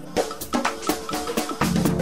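Tech-house DJ mix in a stripped-down drum break: percussion hits with almost no bass, until the bass line comes back in near the end.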